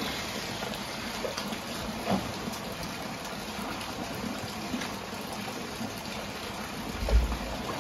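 Water running and splashing into a crocodile pool, a steady gushing with small splashes, and a low thump about seven seconds in.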